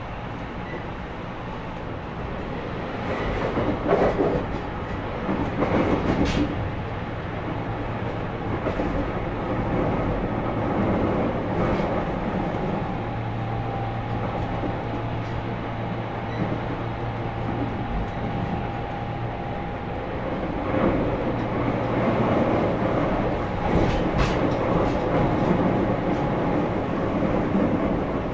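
Running noise of a JR Kyushu 813 series electric train, heard aboard motor car KuMoHa 813-107 with Toshiba GTO-VVVF traction control: a steady rumble of wheels on rail, with a few sharper knocks and swells in loudness as it runs.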